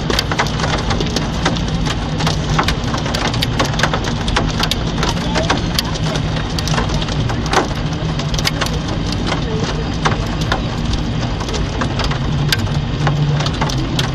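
Heavy rain with hailstones striking hard surfaces: a steady downpour hiss broken by dense, irregular sharp knocks and clicks, over a low steady hum.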